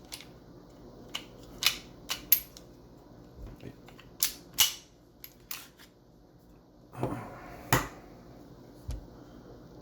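Sharp plastic-and-metal clicks and clacks of a G&G GTP9 gas blowback airsoft pistol being taken down, its slide being worked off the frame. About nine separate clicks come in irregular clusters, with a short scraping slide just before a sharp click near the end.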